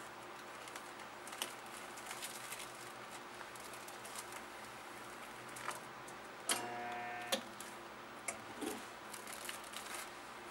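Shrink film crinkling and rustling as it is handled, with small clicks. About six and a half seconds in, the sealing arm of a manual I-bar shrink-wrap sealer clicks down, the sealer hums steadily for just under a second while it heats the seal, then it clicks off.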